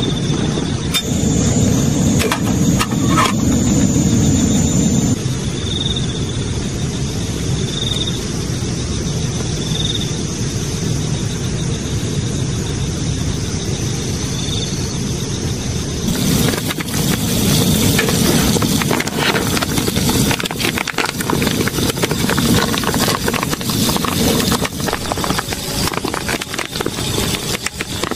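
Steady rain falling, turning to a dense patter of drops a little past halfway. Faint short chirps come about every two seconds in the middle stretch.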